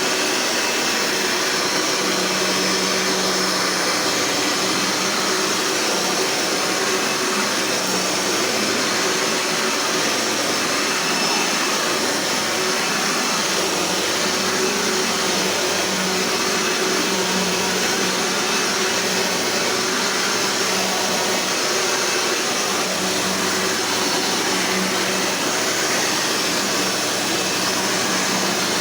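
Eureka Powerline Gold 11-amp upright vacuum cleaner running steadily: an even rush of noise with a low hum underneath.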